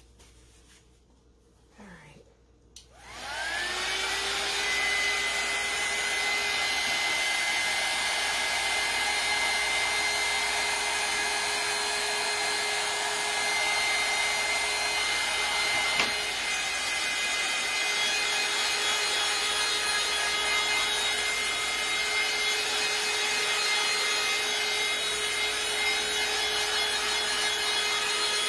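Handheld craft heat tool switched on about three seconds in, its fan whining up to speed and then blowing steadily with a high whine, drying the chalk paste on the pumpkin.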